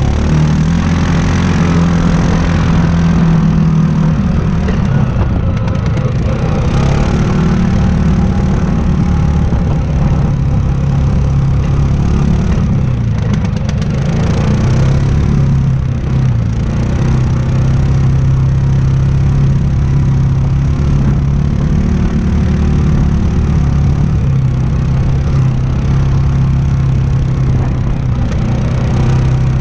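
Yamaha Grizzly 700 ATV's single-cylinder four-stroke engine running steadily while riding a dirt trail, its note shifting up and down a little with the throttle.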